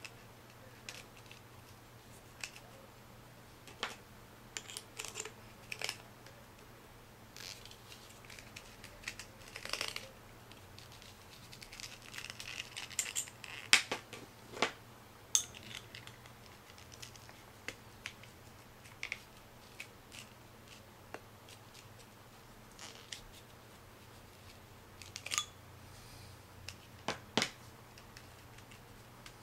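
Hands handling a homemade oil filter strap wrench: scattered clicks, taps and rustles of a rubber water-hose strap and its bolted metal bracket against a metal oil filter canister, with a few louder knocks midway and near the end. A faint steady hum runs underneath.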